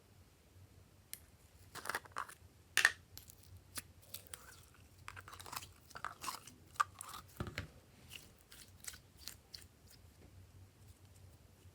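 Glossy slime being mixed, giving irregular wet clicks, pops and crackles. They are loudest around two to three seconds in and again in the middle.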